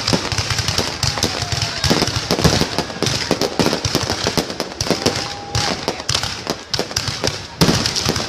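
Fireworks display: a dense, continuous crackle of rapid pops and bangs, with a louder bang about seven and a half seconds in.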